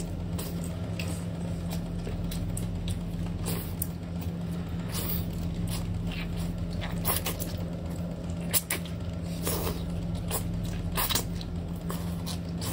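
Wet sucking, slurping and lip smacks of someone eating jarred octopus tentacles, in scattered short clicks that grow stronger in the second half, over a steady low hum.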